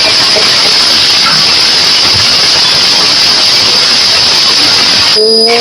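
Loud, steady static hiss, as at the start of an emergency alert broadcast. Near the end the hiss breaks off for a moment and a few short steady tones sound before it returns.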